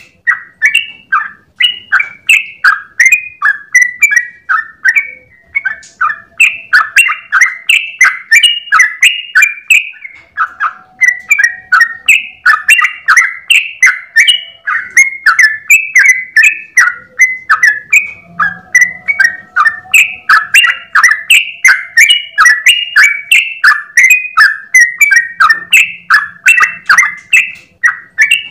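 Yellow-vented bulbul (trucukan) singing a long unbroken 'ropel' song: a rapid, bubbling run of short chirping notes, several a second.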